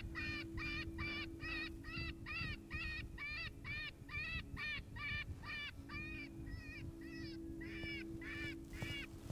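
Electronic predator call playing a rabbit distress sound: a steady run of short, high, wavering squeals, about two and a half a second, meant to bring coyotes in.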